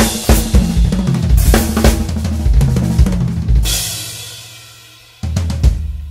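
DW drum kit played in a fast run of drum strokes that ends in a crash about three and a half seconds in. The cymbal rings and fades. A little after five seconds a last pair of hits lands and is left to ring out.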